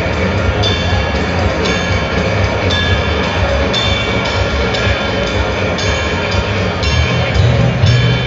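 Thrash metal band playing loud and live during a sound check: heavy guitars and bass over drums, with crashes about once a second.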